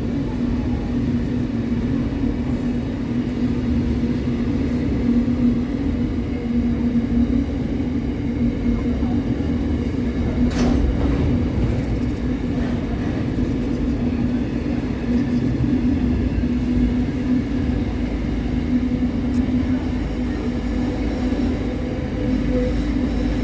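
Railway train noise: a steady low rumble with a constant hum, and a single sharp click about ten and a half seconds in.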